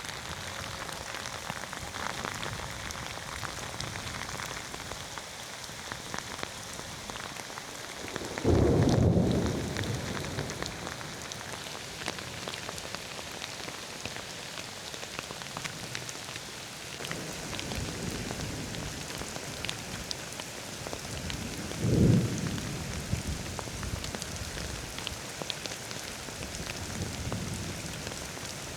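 Steady rain falling and spattering on surfaces, with thunder rumbling several times: a loud low rumble about a third of the way in that slowly fades, a fainter one a little past the middle, and another sharp rumble about three quarters through.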